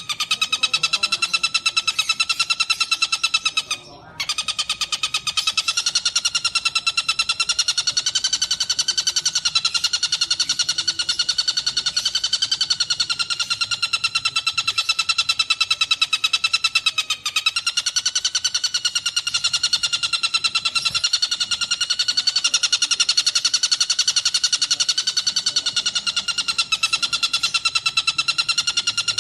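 Recorded birdsong: one continuous, very fast buzzing trill on a near-steady pitch that wavers slightly, breaking off briefly about four seconds in.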